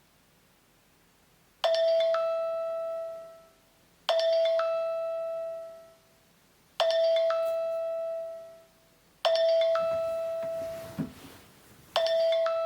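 A bell-like electronic chime tone sounding five times, about every two and a half seconds, each note struck sharply and ringing out over about two seconds.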